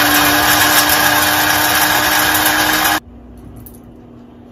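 Electric spice grinder running at full speed, grinding roasted spices to powder with a steady motor whine. It cuts off suddenly about three seconds in, leaving only a faint hum.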